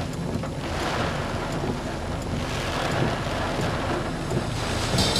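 Severe thunderstorm straight-line winds blowing hard across the microphone, a dense rushing wind noise that swells slightly in gusts.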